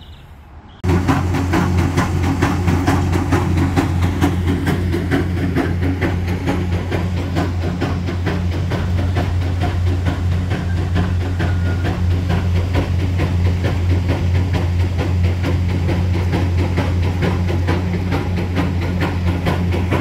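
Concrete pump running during a slab pour: a loud, steady low engine drone with a fast rattling clatter over it. It starts abruptly about a second in.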